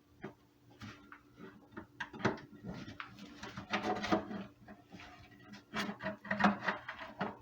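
Wooden cut-out piece being pushed and worked into a tight-fitting opening in a guitar body: irregular light wooden knocks, clicks and scraping. The piece won't seat because it was cut slightly too big for a snug fit.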